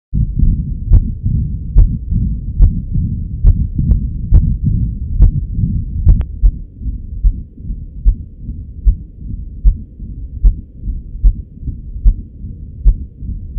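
Recorded heart sounds: a regular heartbeat of about 70 beats a minute, each beat a sharp thud, over a continuous low rushing noise that fills the gaps between beats. It cuts in abruptly at the start.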